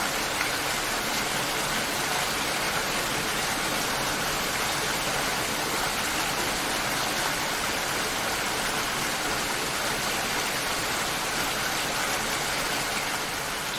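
Steady rain falling, an even hiss with no let-up, easing slightly near the end.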